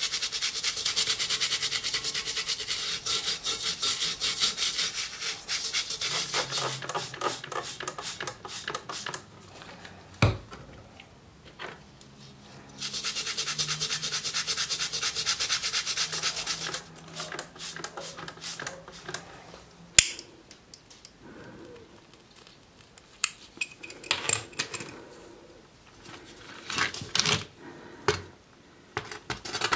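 Stiff plastic brush scrubbing the wet, foaming rust on a steel M42 helmet shell in fast, even back-and-forth strokes, in two long spells with a pause between. In the second half, scattered sharp clicks and knocks of the helmet being handled, one louder click near the middle.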